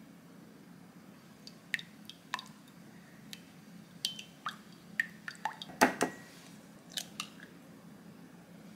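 Scattered light clicks and taps of a utensil against a glass measuring jug while a liquid mixture is stirred, with one sharper knock near the six-second mark, over a faint steady low hum.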